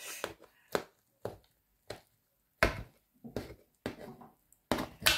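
Knife cutting through a baked potato-crust pizza in a pan, the blade knocking against the bottom of the pan in about a dozen irregular sharp taps, the loudest near the end.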